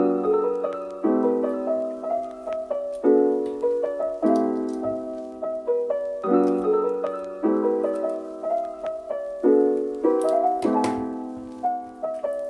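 Background piano music: gentle chords and a melody, each note struck and fading, with the chords changing about once a second.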